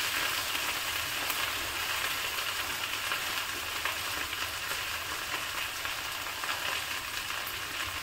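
Chopped okra frying in oil in a metal kadhai: a steady sizzle with a few small crackles as the okra browns.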